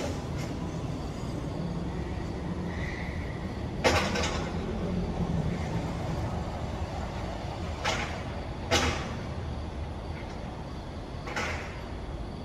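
Crates and goods banging as they are set down while a delivery lorry is unloaded: four sharp knocks a few seconds apart, the first the loudest, over the steady low rumble of the lorry standing at the bay.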